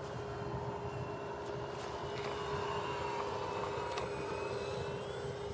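Electric motor and propeller of a small foam RC Piper Cub J3 floatplane in flight, a steady whine with fainter higher tones slowly gliding in pitch as it passes.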